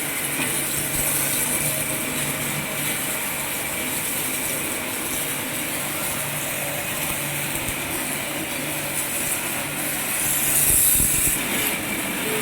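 Kisankraft electric pressure washer running steadily: a constant hum from the motor and pump under a loud hiss of high-pressure water spray, the spray growing louder for a second or so near the end.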